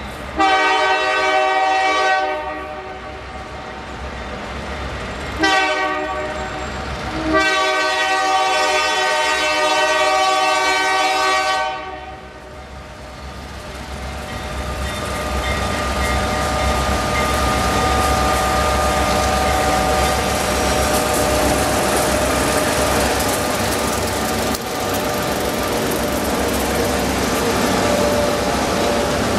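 Diesel locomotive horn sounding three blasts: a long one, a shorter one, then a long one of about four seconds. The approaching EMD road switchers (GP10, GP9 and GP38) then grow louder as their engines and the freight cars roll past close by.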